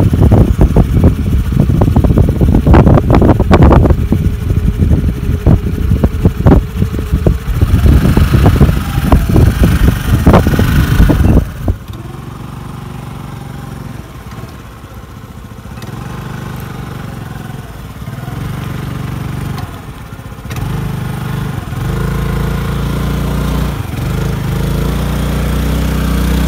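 Hero Maestro scooter's engine revving hard as it tries to get through mud, loud and rough with many sharp crackles. About twelve seconds in the sound drops suddenly to a quieter, steady engine note that grows louder in steps near the end as the scooter pushes into the wet ruts.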